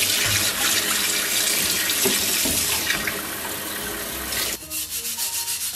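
Kitchen tap running full onto a steel cleaver in a stainless steel sink, water splashing steadily as the blade is rinsed. About four and a half seconds in, the water stops and a quick run of short, evenly spaced strokes takes over.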